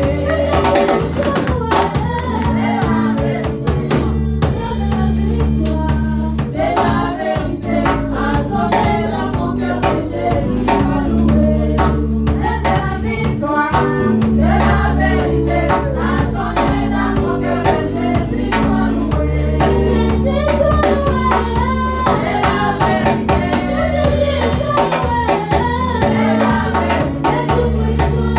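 Church worship song sung by a group of singers over a band with a drum kit, playing steadily without a break.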